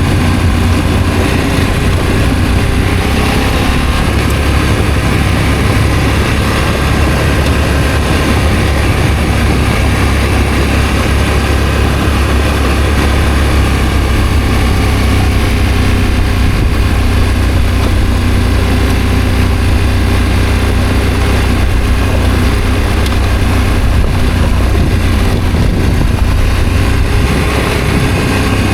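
Adventure motorcycle engine running under way at a fairly steady speed, its pitch drifting slowly up and down, with a heavy low rush of wind over the microphone.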